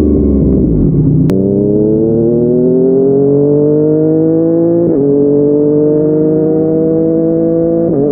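Yamaha MT-09's three-cylinder engine through a Yoshimura R55 slip-on exhaust. The revs fall off, then rise steadily under acceleration, with a sharp click just over a second in. Two quick upshifts come about halfway through and near the end, each a brief dip in pitch.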